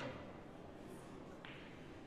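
Snooker balls knocking: a sharp click right at the start, then a fainter one about a second and a half in, over a low hall hiss.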